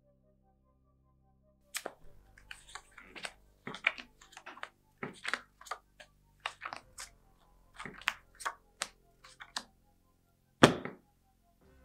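Playing cards being shuffled and dealt onto a cloth-covered table: a quick run of card snaps and flicks starting about two seconds in, then one louder thud near the end, over a low music drone.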